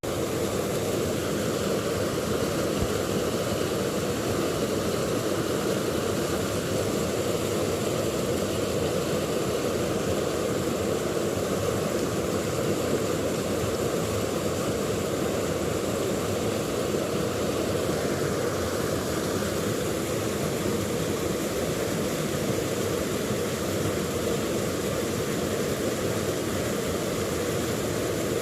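River water rushing over rocks: a steady, unbroken rush.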